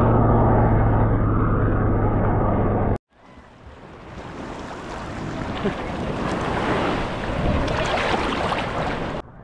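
Muffled underwater water noise with a steady low hum for about three seconds, then an abrupt cut to sea water at the surface: waves lapping and splashing that grow louder, with sharp splashes from dogs swimming.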